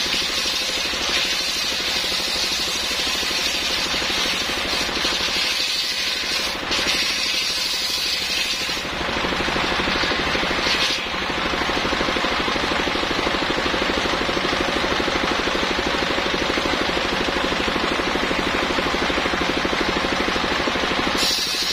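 Engine-driven circular sawmill blade ripping a coconut-palm log, over the steady pulse of the engine. The high cutting sound drops away about nine seconds in, leaving mostly the engine running, and returns just before the end.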